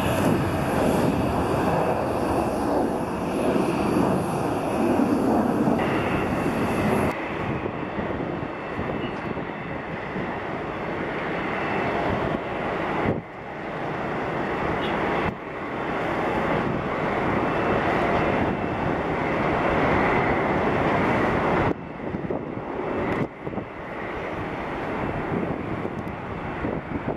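Jet engines of a Boeing 737 at takeoff power during the takeoff roll and climb-out, a loud steady rushing noise. It drops or jumps in level suddenly several times where takes are cut together.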